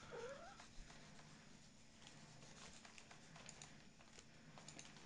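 Near silence: faint rustling and scattered light ticks of the Ugreen MU006 wireless mouse being slid about on a cloth mousepad.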